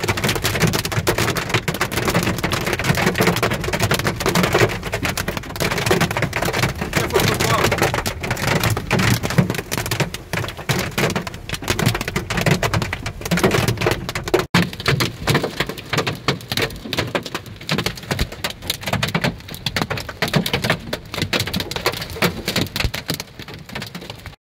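Hail and heavy rain drumming on a car's roof and windscreen, heard from inside the cabin: a dense, rapid patter of strikes, with a brief break about halfway through.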